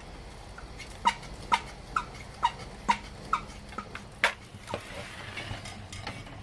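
An animal's short call repeated about seven times, roughly two a second, each note dropping in pitch, followed by a single sharp click.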